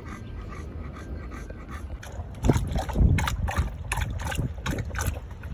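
A bully-breed dog panting, then about two and a half seconds in it starts lapping water noisily from a plastic tub, with quick, splashy laps.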